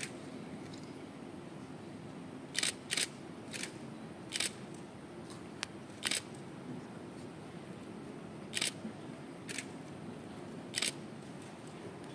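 Camera shutters clicking about nine times at irregular intervals, some in quick pairs, over a steady low background hum.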